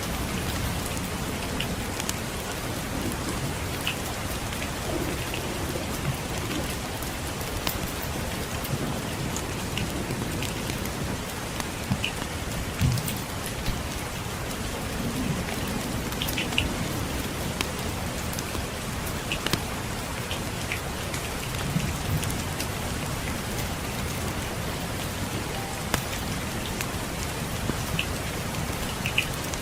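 Steady rain falling, with scattered sharp ticks and pops throughout and a few low rumbles of distant thunder.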